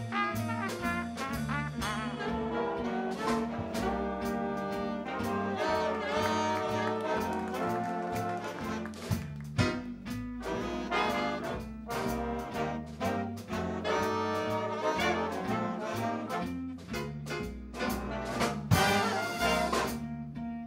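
Big band playing swing jazz live: trumpets, trombones and saxophones in ensemble over upright bass and drum kit, with frequent drum and cymbal hits.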